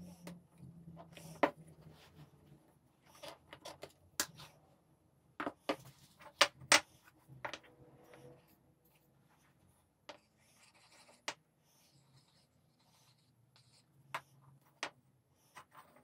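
Wooden workpieces being handled by hand at the bench during gluing: scattered light knocks and taps, with a couple of sharper clicks about six and a half seconds in and a brief rubbing sound around the middle.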